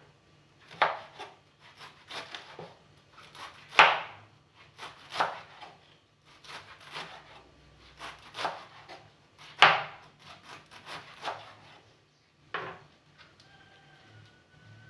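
Knife chopping collard greens (sukuma wiki) on a wooden cutting board: uneven strokes, a few sharper than the rest, stopping about three-quarters of the way through.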